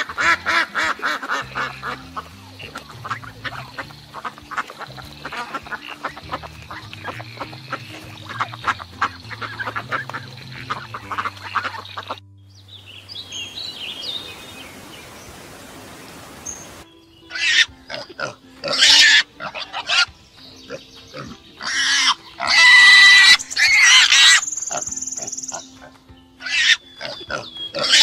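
Ducks quacking rapidly for about the first twelve seconds, then a meadowlark singing briefly and faintly. From about seventeen seconds in, wild boar squealing in loud, separate bursts.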